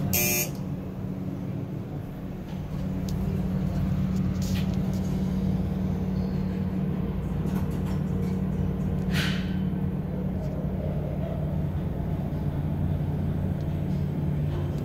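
Steady low machinery hum in a metro station, from escalators and station equipment, growing a little louder about three seconds in. A sharp click at the very start and a brief hiss about nine seconds in.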